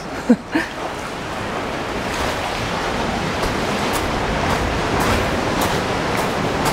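Sea waves surging and washing over a rocky shore: a steady rush of water that grows a little louder toward the end.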